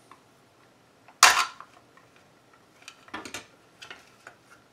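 A screwdriver set down on the workbench with one loud, sharp clatter about a second in, followed by a few lighter knocks and clicks as the plastic earmuff cups are handled.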